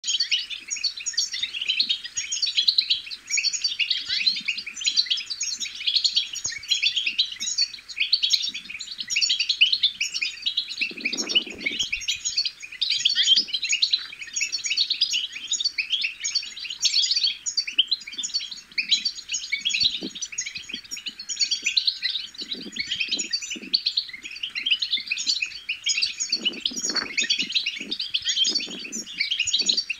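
European goldfinch chattering song: a dense, continuous, fast twitter of high chirps and trills. A few short low muffled sounds come in about a third of the way in and near the end.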